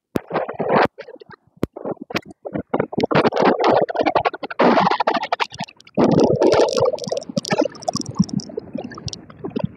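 Wind buffeting the microphone in irregular gusts, rumbling and choppy, with brief dropouts between them.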